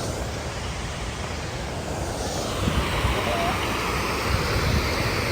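Outdoor rushing noise of flowing river water, with wind buffeting the microphone as an uneven low rumble.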